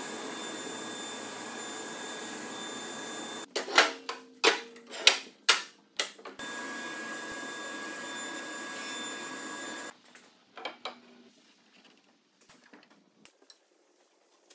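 Table saw with dust extraction running steadily, broken by a quick series of about half a dozen sharp, loud cutting bursts as the blade goes through the ribs of a wooden lattice. In the last few seconds, light wooden knocks and taps as the pieces are fitted together.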